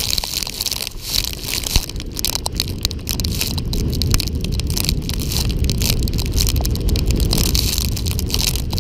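Volcano board sliding fast down loose volcanic gravel: a continuous crunching scrape peppered with many sharp clicks of kicked-up stones, over a heavy rumble of wind buffeting the microphone.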